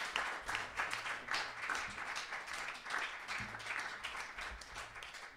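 Small audience applauding, the clapping dying away over the few seconds.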